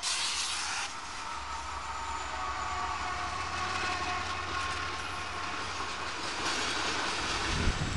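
Norfolk Southern freight train rolling past, its wheels making a steady rumble and clatter on the rails.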